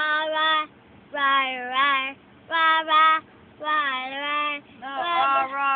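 A young girl chanting a cheerleading rhyme in a sing-song voice, in about five short pitched phrases with brief pauses between them.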